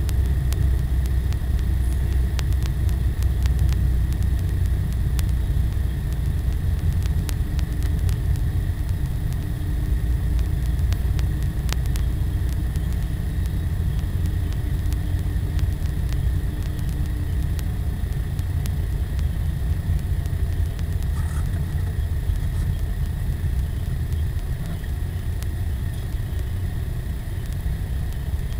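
Car engine and tyre noise heard from inside the cabin while driving, a steady low rumble that eases slightly near the end.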